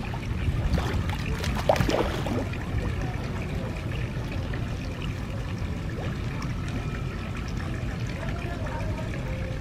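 Water splashing and lapping, with a cluster of louder splashes about two seconds in, over a steady low rumble.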